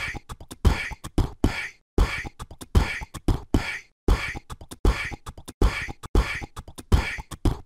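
Beatbox-style outro beat: a repeating pattern of deep thumps and sharp hits, about two strong beats a second.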